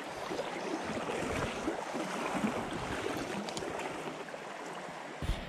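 Shallow river water running steadily, with a few low thumps on the microphone about five seconds in.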